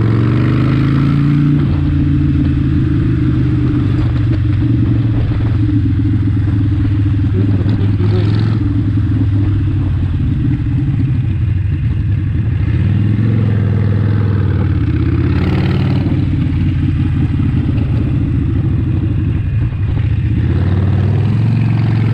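Harley-Davidson Forty-Eight's air-cooled 1200 cc V-twin running under way, its pitch rising and falling several times as the throttle is opened and closed.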